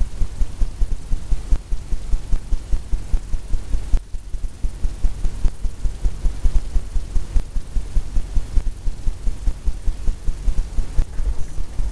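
Oil brush working quickly against a stretched canvas, the taut canvas giving rapid, uneven low thumps about five a second.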